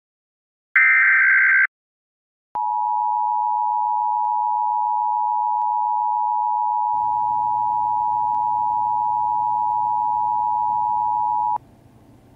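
Emergency broadcast alert: one short screeching burst of the digital data header, then the steady two-tone attention signal held for about nine seconds, which cuts off abruptly near the end. A faint low hum comes in underneath about halfway through.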